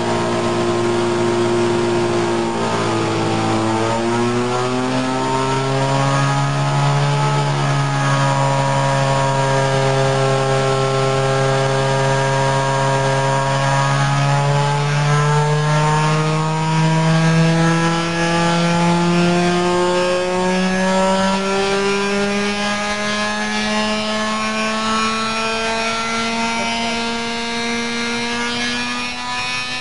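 Thunder Tiger 46 single-cylinder two-stroke glow engine running at high speed on a dynamometer, a loud buzzing whine. Its pitch dips briefly about three seconds in, then climbs steadily through the rest as the revs rise on its first run.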